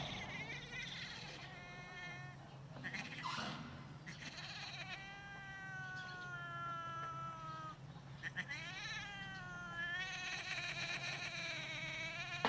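Cat caterwauling during mating: the ginger cat being mounted gives several long, drawn-out yowls. The longest lasts about three seconds and slowly falls in pitch.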